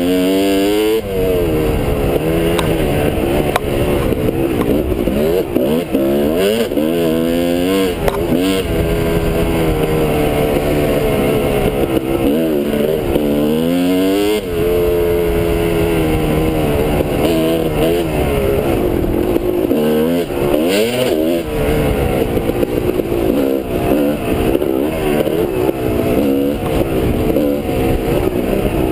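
Kawasaki KX250 dirt bike engine heard up close from the rider's camera, running hard and rising in pitch several times as it revs up through the gears, with steadier running in between.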